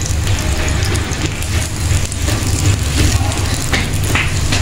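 A steady, low mechanical hum, like a motor or engine running, with faint light taps and rustles above it.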